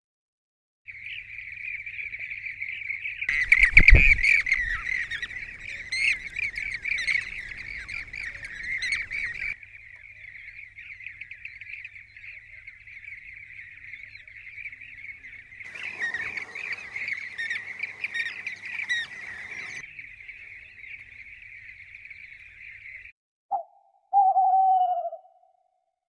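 Many birds chirping at once in a dense, continuous chatter, with a low thump about four seconds in. Near the end there is a click, then one short falling call.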